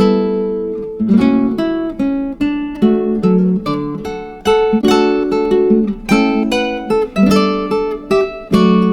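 Background music: an acoustic guitar strumming and plucking chords, each fading before the next.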